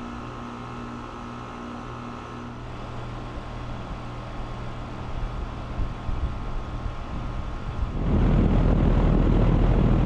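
New Carrier Sentry 5-ton central air-conditioner condenser running: a steady hum from the compressor and outdoor fan. About eight seconds in the sound turns much louder, rushing and rumbling, as the microphone comes over the top fan outlet into the stream of discharge air.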